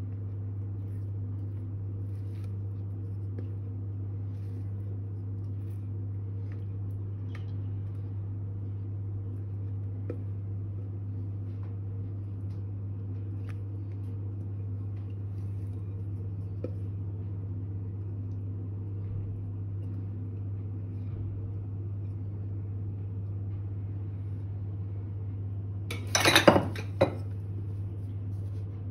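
A spatula scraping batter from a glass mixing bowl into a metal cake pan, with faint scattered clicks over a steady low hum. Near the end comes a short cluster of loud clinks and knocks of bowl and utensil.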